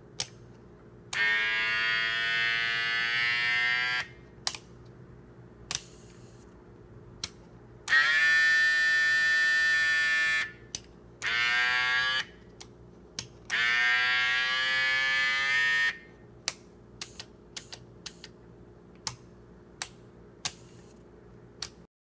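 The miniature electric air compressor of a scale model car's air-bag suspension runs in three buzzing bursts of about three seconds each, its pitch climbing a little as each starts. Short sharp clicks fall between and after the runs.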